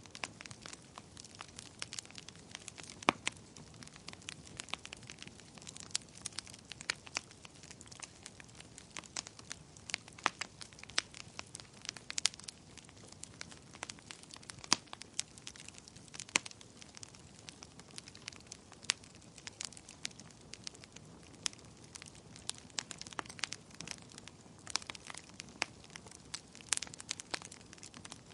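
Fire crackling: irregular sharp pops and snaps over a low steady hiss, a few of them much louder than the rest.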